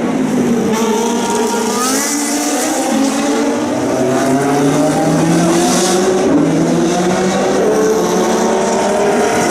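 Historic Formula 1 racing engines at full throttle, several at once, each rising in pitch through the gears, with a gear change about two seconds in.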